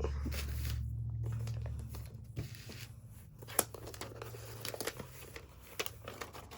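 Packaging being handled and unwrapped: crinkling and light tearing of the wrapping around a new laptop, with scattered small clicks and one sharper click partway through. A low steady hum fades out about two seconds in.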